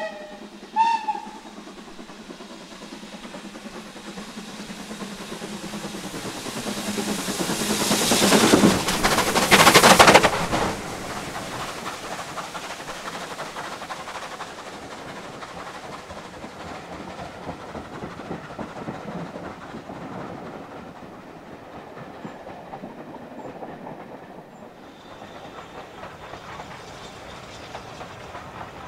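Steam locomotive hauling a passenger train past: a short whistle blast about a second in, then the engine's sound builds to its loudest around nine to ten seconds as it passes close, followed by the coaches rolling by on the rails at a steadier, lower level.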